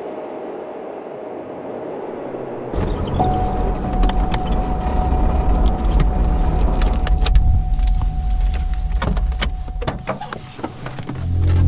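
Car engine running, heard from inside the cabin. A quiet hiss at first gives way suddenly, a few seconds in, to a loud low rumble with a steady high tone over it. A run of sharp clicks and knocks follows, and the rumble fades briefly near the end.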